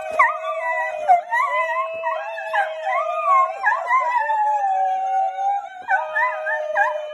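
A dog howling in long, drawn-out howls with wavering pitch, while a second howling voice holds a steadier, lower note beneath it.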